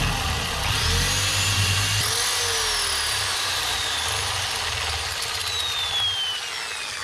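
Power drill boring a masonry bit into a brick wall: a steady grinding drill noise, its motor whine rising twice early and then slowly dropping in pitch as it runs on.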